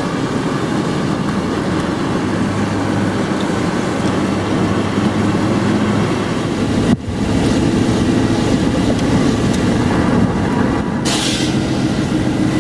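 Steady road and engine rumble inside a moving vehicle, broken by a sudden cut about seven seconds in, with a short hiss near the end.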